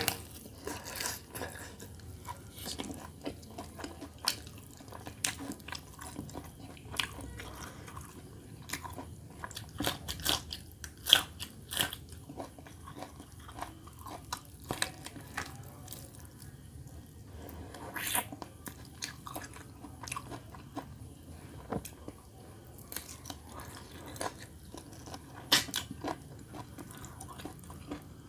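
Roast chicken being bitten, torn and chewed with the mouth close to the microphone: irregular wet smacks and sharp clicks, the loudest a little before the middle.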